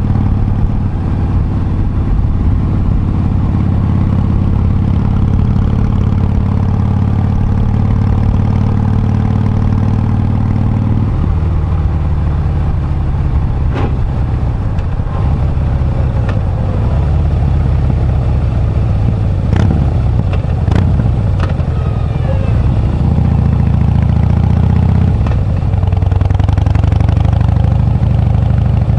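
Harley-Davidson V-twin motorcycle engine running steadily. Its note changes about eleven seconds in and again near the end, and a few sharp clicks come in the middle.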